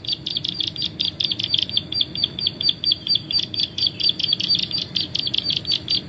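Recorded prinia (prenjak/ciblek) call played as a bird lure through an old Nexian mobile phone's speaker: a steady, rapid string of high chirping notes, about eight a second.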